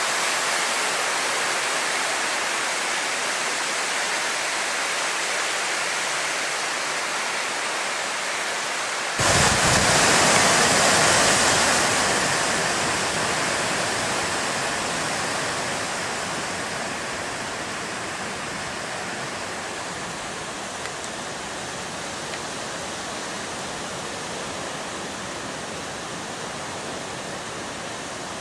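Steady rushing hiss of storm wind and rain from Hurricane Sandy. About nine seconds in it suddenly jumps louder with a deep rumble added, then eases off gradually.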